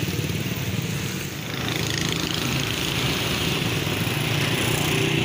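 Small vehicle engine running steadily close by, a low rapid thrum, with the noise of traffic on the wet road around it.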